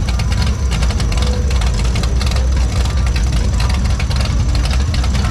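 An off-road vehicle's engine running steadily with a loud low rumble.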